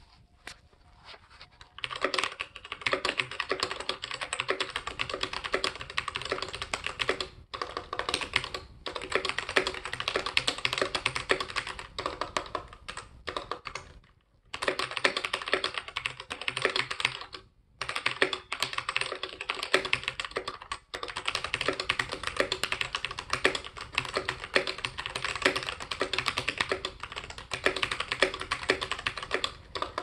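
Fast, continuous typing on a modded RK61 60% mechanical keyboard, dampened with a tape mod, band-aid and clipped stabilizers and a case filled with toilet paper. It makes a dense clatter of keystrokes that starts about two seconds in and stops briefly a few times.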